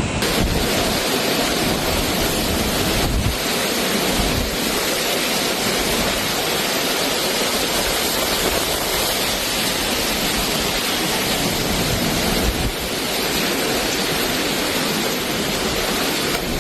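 Storm wind and heavy rain rushing steadily, with gusts rumbling on the microphone.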